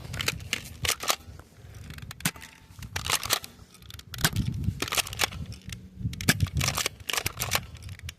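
Repeated sharp clicks and clacks from a toy foam-dart blaster being handled and fired, with gusts of wind buffeting the microphone.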